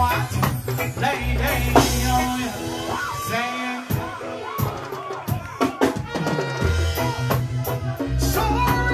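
Live band music, with a drum kit keeping a steady beat over a heavy bass line and a man singing into a microphone over it.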